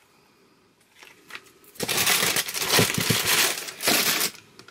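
Packaging crinkling and rustling as things are handled, starting about two seconds in and lasting a couple of seconds as a dense run of crackles, then stopping shortly before the end.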